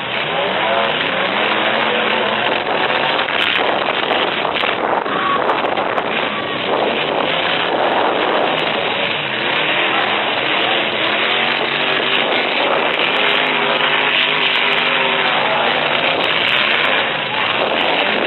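Several full-size pickup trucks' engines revving up and down as they ram each other in a demolition derby, with scattered knocks of collisions.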